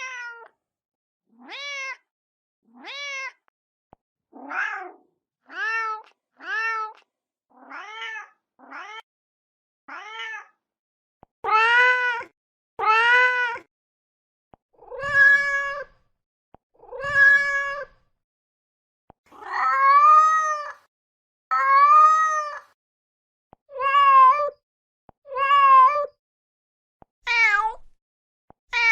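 Mother cat calling for her kittens: a long series of meows with silence between, short and about one a second at first, then longer and louder calls every second or two from about eleven seconds in.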